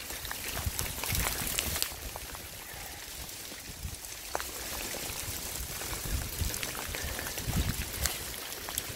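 Small hailstones falling heavily in a steady hiss, with many sharp ticks as they strike the cars and ground.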